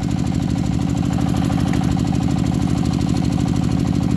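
Small engine running steadily with a rapid, even beat.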